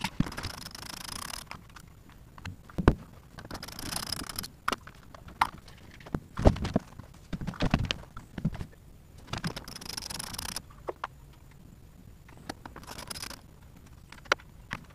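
Hand work on a bank of batteries and their cables: intermittent knocks, clicks and scraping as they are unhooked to be moved out, with a few sharp knocks, the loudest about three and six and a half seconds in.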